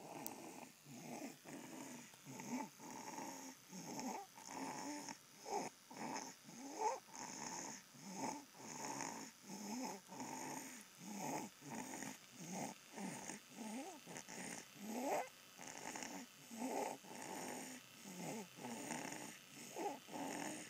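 A 9-week-old baby snoring in his sleep: quick, rhythmic noisy breaths, about two a second, some with a squeaky pitch that slides up or down.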